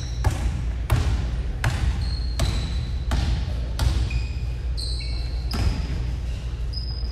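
A basketball being dribbled on a hardwood gym floor, about eight bounces in a steady rhythm, roughly one every 0.7 seconds. Short high sneaker squeaks join in from about halfway, over a steady low hum.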